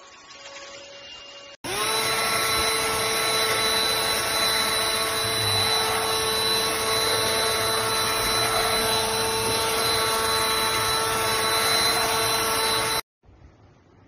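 Cordless stick vacuum cleaner running: a steady motor whine over a rushing suction hiss. It spins up quickly about a second and a half in and cuts off suddenly near the end.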